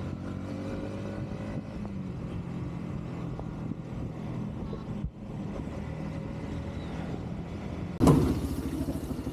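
Yamaha MT-15's single-cylinder engine running steadily as the motorcycle cruises at about 40–50 km/h, heard from the handlebars. About eight seconds in the sound cuts suddenly to louder motorcycle engines idling close by.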